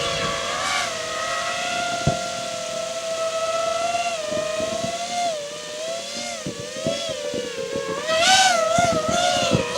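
FPV racing quadcopter's brushless motors whining, the pitch rising and falling with throttle and climbing highest about 8 seconds in, with scattered sharp pops underneath.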